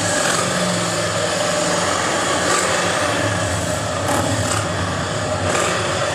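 Steady low rumble of Harley-Davidson motorcycle engines idling close by.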